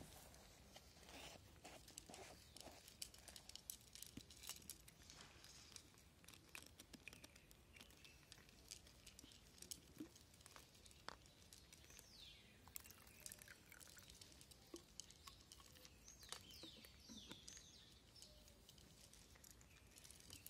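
Faint, irregular crunching and clicking of cats chewing dry kibble from saucers. In the second half there are a few faint, high, falling chirps.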